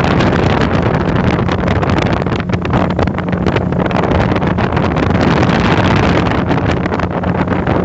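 Speedboat engine running steadily at speed, a constant low hum under the rush of wind buffeting the microphone.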